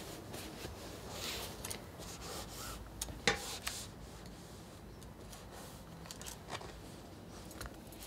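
Cloth rustling and rubbing as hands smooth and handle garments, with scattered soft handling clicks and one sharp knock a little over three seconds in.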